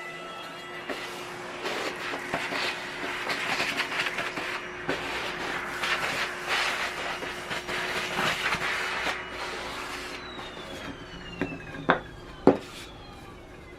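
Makita RT50D cordless trimmer router running and surfacing a warped wooden board flat, with repeated rasping surges as the bit cuts across the grain. Near the end the motor is switched off and its whine falls in pitch as it winds down, followed by two sharp knocks about half a second apart.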